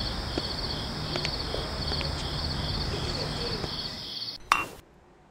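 Night-time crickets chirring steadily in an even pulsing trill, with faint footsteps. Near the end a single sharp hit rings briefly, then the crickets stop and it goes almost silent.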